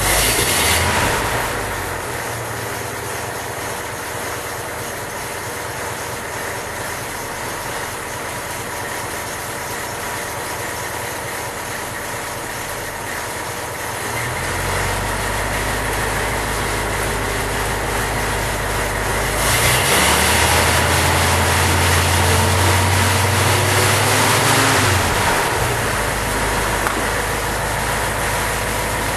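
Freshly rebuilt 1927 Cadillac 314 V8 engine running: idling steadily, picking up speed about halfway through, then revved louder for several seconds before easing back down.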